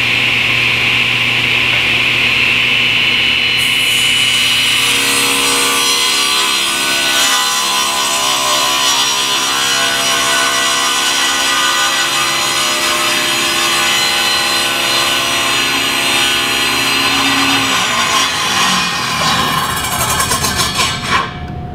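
Cabinet table saw running and ripping a wooden plank pushed along the fence, the blade cutting to a marked stop line in a stopped cut. The cutting sound starts a few seconds in and eases off about eighteen seconds in.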